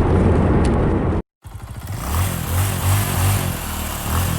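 Car driving noise, a steady low rumble of engine and road, which cuts off abruptly about a second in. After a short gap comes a different, brighter engine rumble with a pulsing low drone and wavering pitch.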